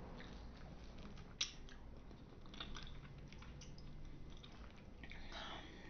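Soft chewing and mouth clicks of someone eating fruit, with one sharper click about a second and a half in.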